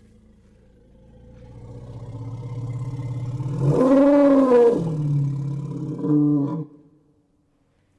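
Elephant rumbling low and swelling over the first few seconds, breaking into a loud bellowing roar that rises and falls in pitch about four seconds in. A shorter, lower call follows and stops abruptly just before seven seconds.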